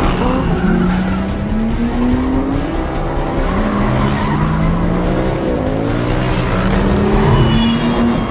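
A car chase: engines revving hard, their pitch climbing and dropping again and again as the cars accelerate and shift, with a short tyre squeal near the end. The lead car is a classic Aston Martin DB5, with other cars and motorcycles in pursuit.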